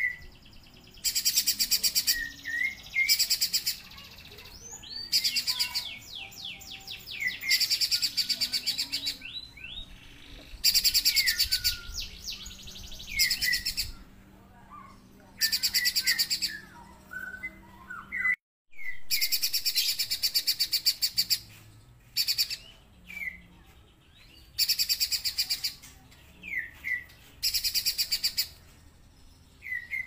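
Caged pijantung gunung songbird singing vigorously: bursts of rapid, high chattering trills about a second long, repeated over and over, with short downward chip notes between them.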